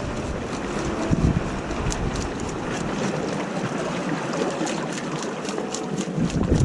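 Seawater splashing and lapping in a shallow rock pool as hands work fish in it, with small crackling splashes throughout. Wind rumbles on the microphone, easing off in the middle.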